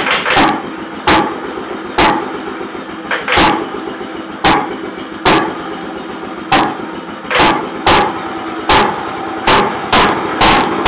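Antique 1920s–early-1930s Jacobsen two-stroke flywheel engine running just after being hand-cranked into life. A steady running sound is broken by loud sharp firing bangs at uneven gaps of about a second, which come closer together near the end.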